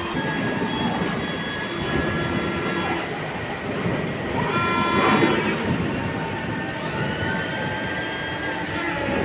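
Machinery running in a metalworking factory: a steady mechanical din with several high whining tones, swelling about halfway through, and a whine rising in pitch about seven seconds in.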